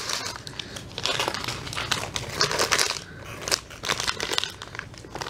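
Crumpled paper receipts and a folded paper flyer crinkling and rustling as they are unfolded and handled, a run of irregular crackles.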